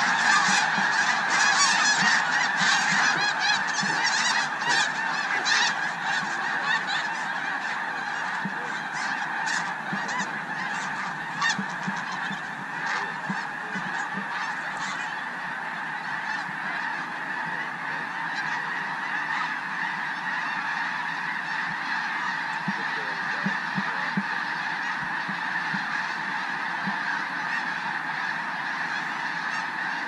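A huge flock of snow geese calling in a dense, continuous chorus of honks as they fly overhead. It is loudest in the first few seconds and eases to a steadier level as the flock spreads out.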